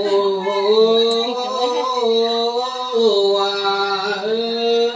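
Lượn folk singing: a single voice holding long notes and gliding slowly from one pitch to the next, with no breaks for words.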